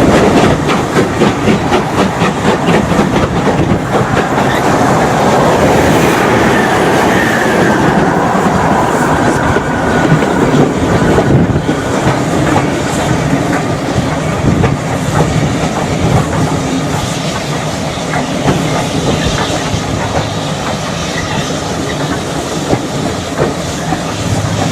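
Double-headed steam train passing close, its wheels clattering rapidly over the rail joints. A faint tone falls in pitch about a third of the way in, and the clatter eases off towards the end.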